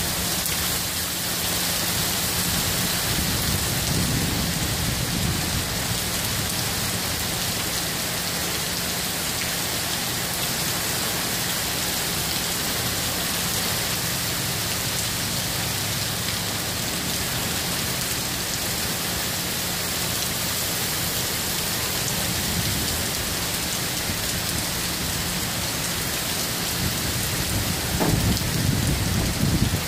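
Heavy rain pouring steadily on the street, with low rumbles of thunder about four seconds in and again, louder, near the end.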